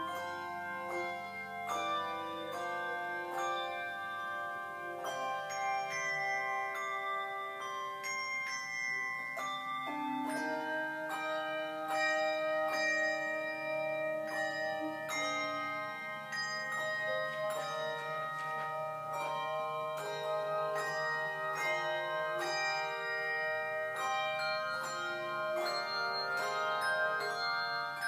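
Handbell choir ringing a hymn arrangement: bells struck in turn and left to ring, their notes overlapping into sustained chords.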